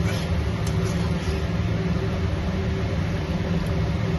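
A steady low hum from a running motor, with a faint even hiss above it.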